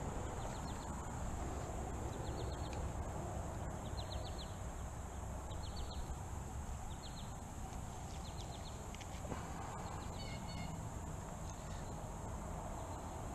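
A steady, high, shrill drone, like summer insects, runs over a low, even outdoor rush. Short bursts of rapid clicking chirps come every second or two.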